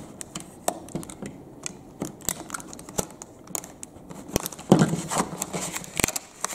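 Utility knife blade slicing through a stiff plastic clamshell blister pack, with irregular clicks and crackles of the plastic. Near the end a louder crackling comes as the plastic is pulled apart by hand.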